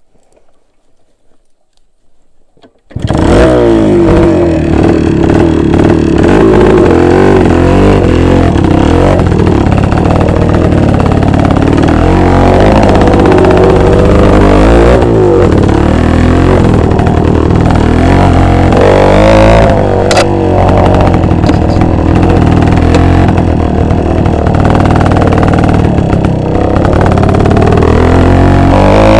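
After about three seconds of near quiet, a small two-stroke motorcycle engine cuts in loud and runs on, revving up and down again and again.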